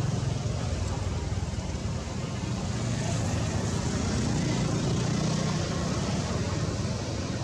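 Steady low engine rumble with a hiss over it, swelling slightly around the middle.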